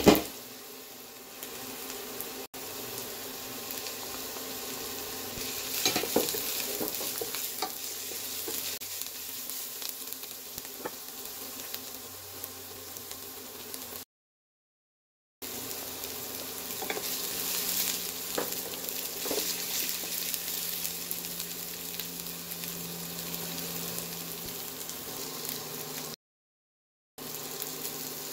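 Chopped red onion and garlic sizzling steadily in hot oil in a stainless steel pan, with scattered crackles, opened by one sharp knock. The sound drops out completely twice for about a second.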